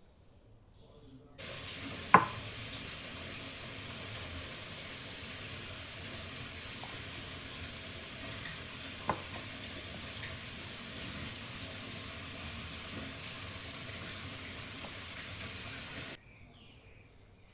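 A steady hiss that cuts in abruptly and cuts out just as abruptly, with one sharp knock about two seconds in and a fainter click near the middle.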